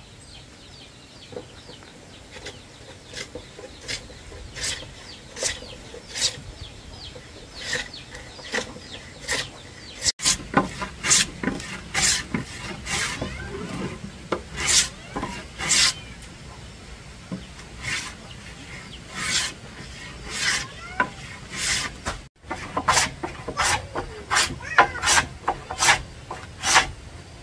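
Repeated strokes of a hand tool scraping across wood, each a short rasp. The strokes come about once a second at first and quicken later.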